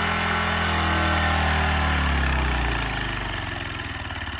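Small gasoline engine of a Craftsman pressure washer running steadily, then losing speed about two seconds in: its pitch falls and it slows to separate, audible firing strokes as it dies.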